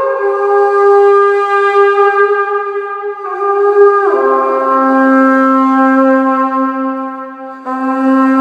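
Carnyx, the Iron Age Celtic bronze war trumpet, sounding long held notes. It slides down into a note at the start and holds it, then glides down to a lower held note about four seconds in, and re-attacks that note near the end.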